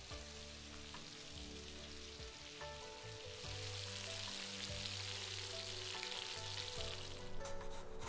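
Meat (pork belly and sausages) sizzling steadily as it grills, a faint even hiss of fat spitting.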